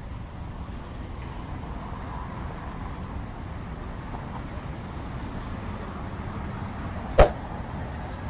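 Steady street ambience with traffic rumble, broken by one sharp bang about seven seconds in.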